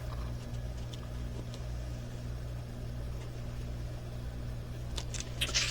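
Steady low background hum, like a fan or appliance running, with a few light clicks and rustles near the end.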